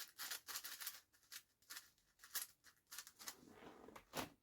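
A modded plastic 7x7 speedcube being turned by hand: a quick, irregular run of faint clicks from the layers, with one sharper click about four seconds in.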